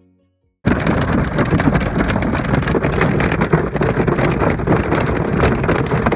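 Heavy rain and hail pelting a car's roof and windows, heard from inside the cabin as a loud, dense patter of countless small hits. It starts suddenly about a second in.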